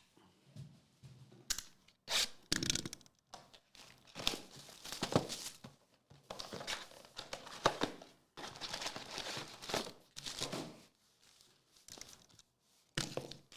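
Trading card packs being torn open, their foil wrappers tearing and crinkling in a series of short bursts, with a few light knocks.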